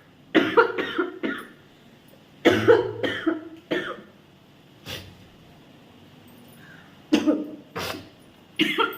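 A person coughing in four bouts of several short, sharp coughs each, the last starting near the end, irritated by the smoke from dried red chillies being roasted.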